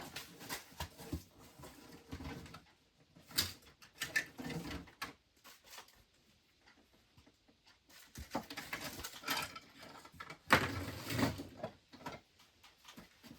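Small items being handled and sorted: scattered knocks, clatter and rustling, with the loudest knock about ten and a half seconds in.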